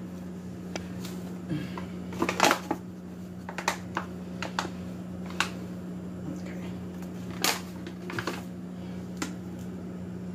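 Paper flour bag crinkling and a plastic measuring cup scooping and knocking, as a cup of flour is measured out: scattered short clicks and rustles, the loudest about two and a half and seven and a half seconds in, over a steady low hum.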